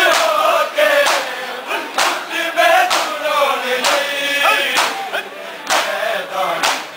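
Men chanting a noha (Shia lament) in a steady rhythm, with the crowd's bare-handed chest-beating (matam) landing as sharp slaps about once a second.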